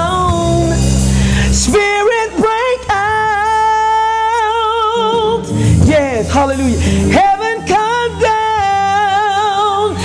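Woman singing a gospel praise song into a handheld microphone, holding long notes with vibrato over instrumental backing with a low bass line.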